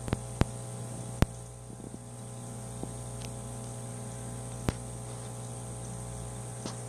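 Steady electric hum of an aquarium air pump, with soft bubbling from air-driven sponge filters. Three sharp clicks break it, two in the first second and a half and one a little past the middle.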